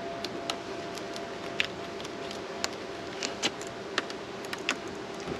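Steady hum of honeybees buzzing around an open hive, with scattered sharp clicks and cracks as a hive tool pries at a box whose queen excluder is stuck fast.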